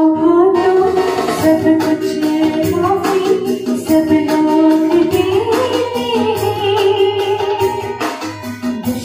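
A woman singing a Hindi devotional song into a handheld microphone, holding long wavering notes, over instrumental accompaniment with percussion.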